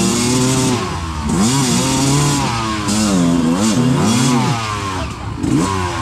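Dirt bike engine revving up and falling back again and again, about once a second, as the bike is ridden up a steep, muddy trail.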